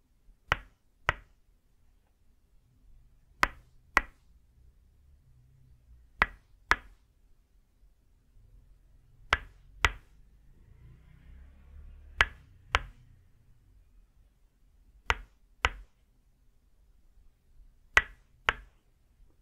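Tok sen massage: a wooden mallet strikes a wooden peg pressed on the shoulder and upper back. Sharp wooden knocks come in pairs about half a second apart, a pair roughly every three seconds, seven pairs in all.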